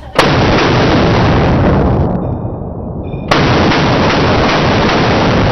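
Two AK rifle shots slowed down, each a sudden crack that stretches into a long fading boom, the second about three seconds after the first.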